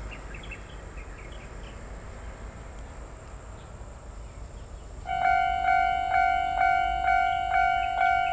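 Railway level-crossing warning bell starting to ring about five seconds in, a steady ding repeating about twice a second, the signal that a train is approaching and the crossing is closing. Before it, only faint outdoor chirps.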